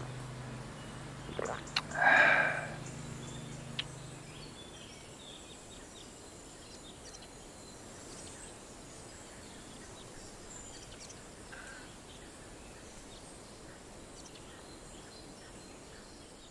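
Faint outdoor ambience: a steady low hiss with occasional faint bird chirps. A brief louder call comes about two seconds in, and a low hum stops about four seconds in.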